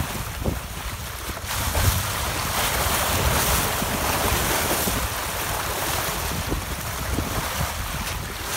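Bow wave of a sailboat under way, water rushing and splashing along the hull, with wind buffeting the microphone.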